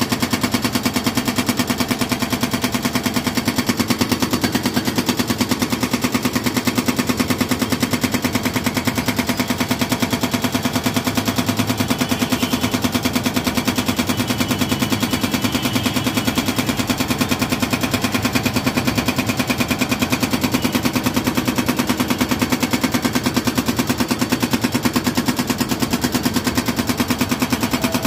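Excavator-mounted hydraulic breaker hammering hard concrete, a rapid, even stream of blows that runs on without a pause as the slab breaks into pieces.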